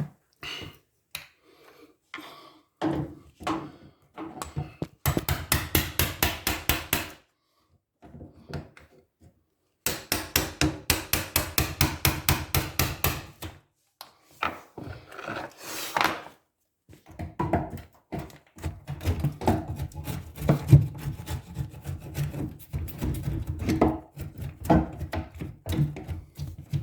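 Hand tools cutting back the wooden cabinet side: two runs of quick, even strikes, several a second, then slower irregular knocks and scrapes on the wood.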